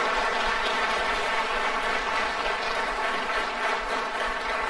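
Audience applause filling the hall after a punchline, a dense steady clapping that begins to die down near the end.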